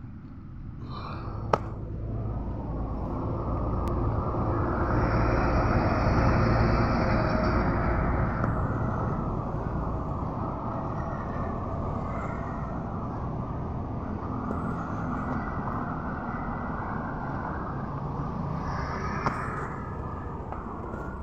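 Diesel engine of heavy road-construction equipment running, swelling over the first few seconds to its loudest about six seconds in, then holding at a steady run. A sharp click about one and a half seconds in.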